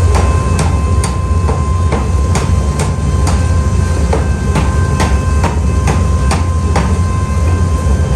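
Hammer blows on metal, about two a second in a steady rhythm, over the continuous low hum of running workshop machinery.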